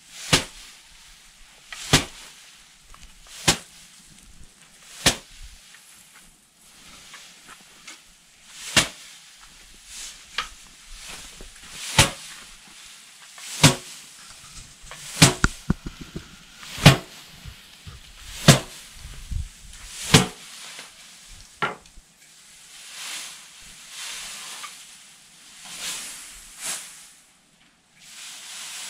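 Sheaves of rice being threshed by hand, beaten against a slanted wooden threshing board: sharp slaps about every second and a half, with rustling straw between. After about twenty seconds the strikes stop and only softer rustling of straw is left.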